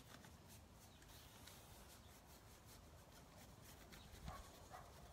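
Near silence, with faint brush scrubbing as clay paint is wet-blended on the dresser; two short faint sounds come near the end.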